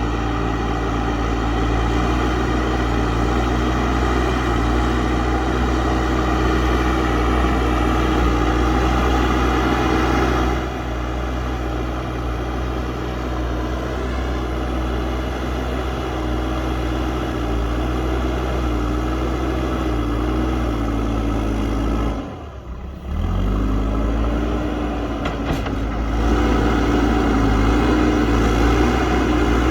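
JCB backhoe loader's diesel engine running steadily under load as the machine pushes and levels soil, its pitch rising and falling slightly. About three-quarters of the way through, the sound dips out for about a second, then carries on.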